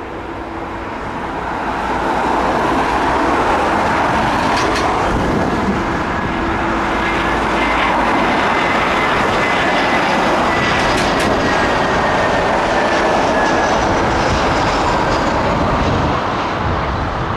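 Jet airliner's engines roaring as it passes close by, swelling about two seconds in, holding for several seconds with a faint high whine slowly falling in pitch, then easing near the end.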